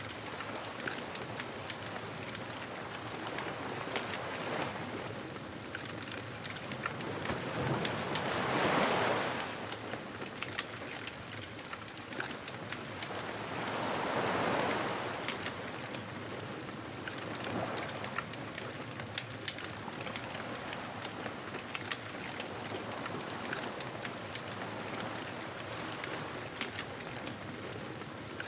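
Beach bonfire crackling with many small pops over a steady hiss, while waves wash up on the shore. The surf swells several times, loudest about nine seconds in and again about fourteen seconds in.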